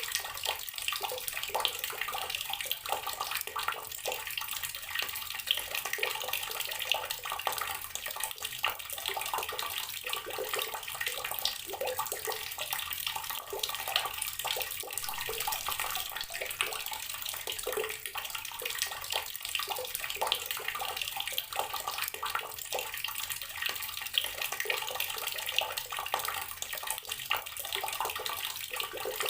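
Water running steadily from an outdoor tap, the stream splashing with a constant, busy patter of small splashes.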